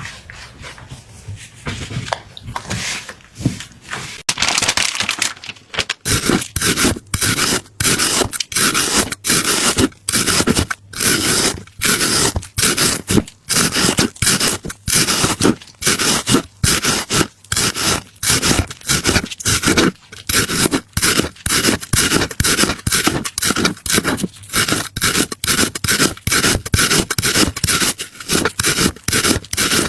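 Rapid, even scraping strokes, about two to three a second. They start about four seconds in and grow louder.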